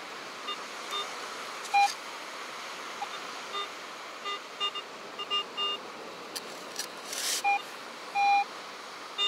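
Garrett AT Pro metal detector beeping as the coil sweeps over a buried target: short beeps, a higher tone about a second in, a run of lower beeps through the middle, and higher tones again near the end, one held a little longer. The target reads in the 40s, which the detectorist takes for another piece of foil.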